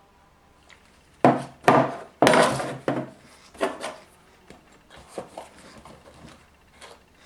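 Handling noise from a tabletop plastic repair: a run of loud scraping, rattling bursts about a second in, then quieter scattered taps and rubs as the lid and glue and baking-soda containers are worked with.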